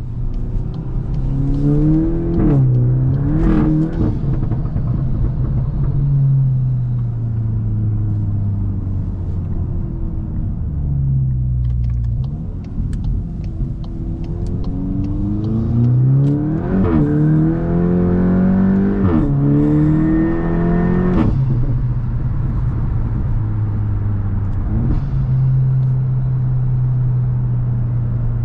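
Tuned Volkswagen Mk8 GTI's turbocharged 2.0-litre four-cylinder with an aftermarket catback exhaust, accelerating hard twice: the note climbs and falls away at each upshift, with a sharp crack at several of the shifts. It settles to a steady cruising drone over the last few seconds.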